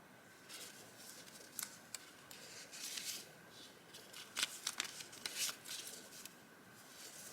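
Vintage paper items being handled: sheets rustling, sliding and crinkling, with a few crisp flicks and taps, busiest in the middle.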